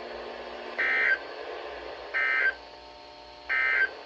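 Emergency Alert System end-of-message signal: three short, harsh digital data bursts about a second apart, marking the end of the severe thunderstorm warning broadcast. They play over a faint steady hum.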